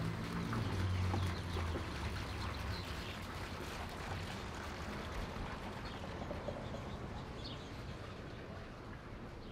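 A passing train: a low diesel engine drone that drops away about two seconds in, then a broad rumble slowly fading. A few faint bird chirps near the end.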